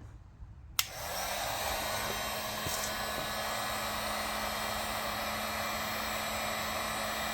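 Harbor Freight heat gun switched on with a click about a second in, its motor spinning up and then running steadily on high heat, a steady blowing noise with a low hum.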